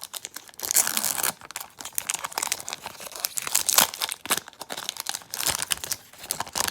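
Magic: The Gathering booster pack's foil wrapper being torn open and crinkled by hand, a dense run of sharp crackles in uneven bursts.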